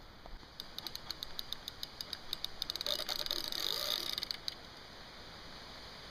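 Spinning reel's drag ticking, speeding up into a continuous high buzz for about a second and a half, then stopping suddenly: a hooked salmon taking line off the reel.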